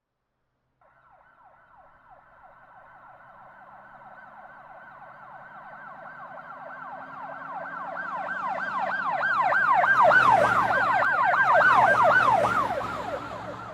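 Emergency vehicle siren on a fast yelp, sweeping up and down several times a second. It grows steadily louder as it approaches, is loudest about ten to twelve seconds in, then starts to fade as it passes, with a low vehicle rumble under the loudest part.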